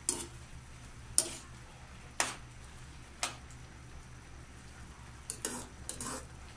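Metal spoon stirring chicken gizzards in a non-stick frying pan, knocking against the pan about once a second and then in a quick cluster of knocks near the end, over a faint sizzle of the simmering sauce.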